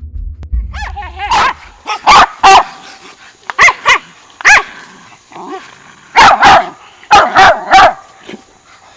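Hog-hunting dogs (Jagd terriers and curs) barking at a caught black boar hog: about ten loud, sharp barks in clusters, starting about a second in.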